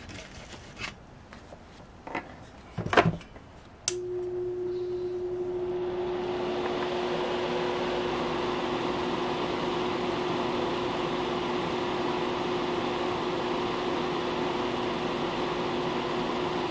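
A small electric fan switched on with a click about four seconds in, running up over a second or two and then holding a steady hum with a rush of air. A few light knocks of handling on the work surface come before it.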